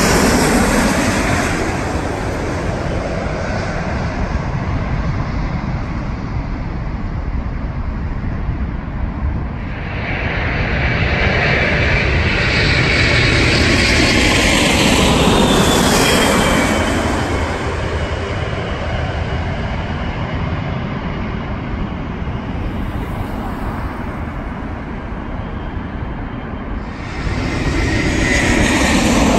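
Jet airliners on final approach passing low overhead one after another: a British Airways Boeing 777-200ER at the start, a four-engined Boeing 747 louder in the middle with a high engine whine that drops in pitch as it goes by, and a Swiss Airbus A320 growing louder near the end.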